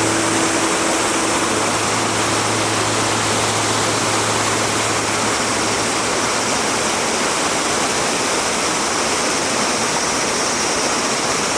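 Fast-flowing mountain water rushing steadily: an even, unbroken roar of falling and tumbling water.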